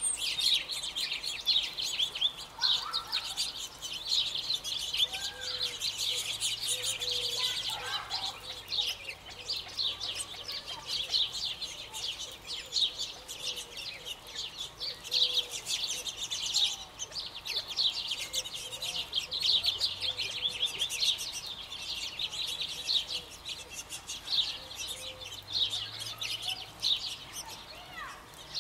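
Many birds chirping busily together: a dense run of quick, high chirps overlapping without pause, with a few lower calls scattered through.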